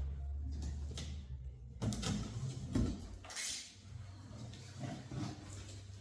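Light clattering and rustling of equipment and packaging being handled during an unboxing: scattered small knocks, with a brief rustling swell about three and a half seconds in.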